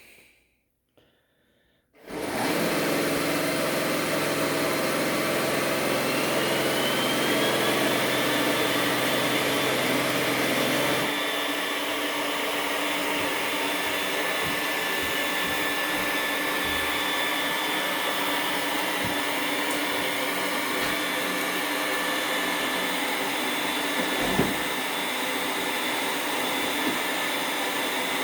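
iRobot Roomba S9 robot vacuum starting up about two seconds in and running steadily, its motor whine rising in pitch over the next few seconds. The low hum drops away about halfway through, and there is a single thump near the end.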